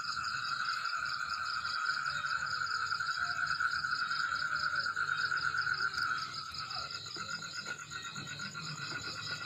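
Night chorus of frogs trilling steadily, with insects chirping in a higher, thinner band; the lower trill weakens about six seconds in.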